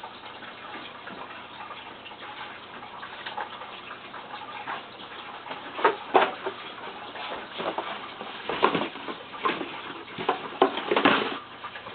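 Handling noise from a cardboard package being worked at: irregular ticks, scrapes and rustles over a low hiss, louder and busier in the second half.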